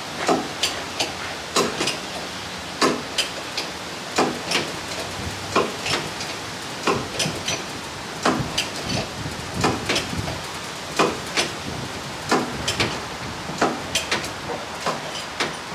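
Irregular sharp clicks and knocks, about one or two a second, from hands working metal at a large truck tyre's steel rim and hub, over a steady hiss.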